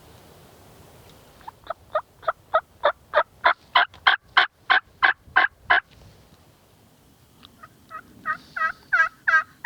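A long run of hen turkey yelps: about fifteen evenly spaced notes over four seconds that swell and then fade. A second, quicker run of yelps starts near the end and grows louder.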